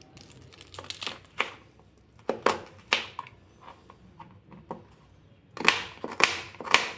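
Kitchen knife cutting a red onion on a plastic cutting board: a series of crisp, separate cuts and knocks, coming quickest in the last second and a half. Earlier, the papery crackle of onion skin being peeled off.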